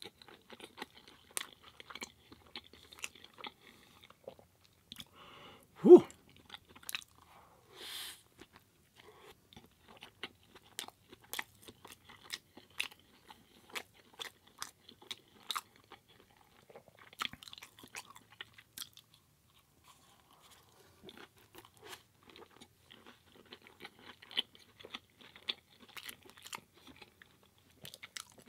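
Close-miked chewing of a curry burrito in a tortilla wrap: irregular wet mouth clicks and smacks. There is one much louder thump about six seconds in.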